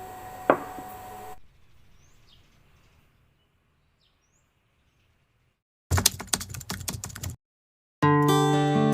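A single sharp click. After a silent gap comes a rapid run of clicks and taps lasting about a second and a half, and then music with a plucked, guitar-like sound starting near the end.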